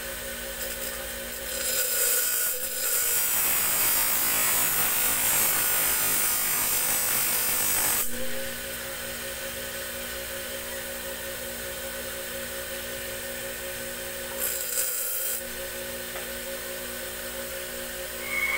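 Motor-driven grinding wheel running with a steady hum while a small steel tari blade is pressed against it to shape it: a loud grinding noise for about six seconds, starting a couple of seconds in and cutting off sharply, then a second brief touch of about a second later on.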